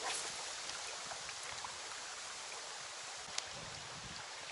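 Shallow river current running over stones: a steady rush of water, with a single sharp click about three and a half seconds in.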